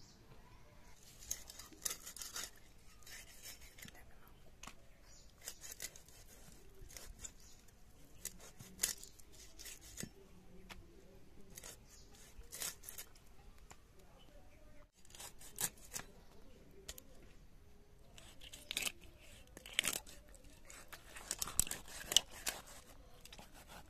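Fish scales being scraped off a whole fish against the edge of an upright boti blade: short, irregular rasping scrapes, coming thicker and louder near the end.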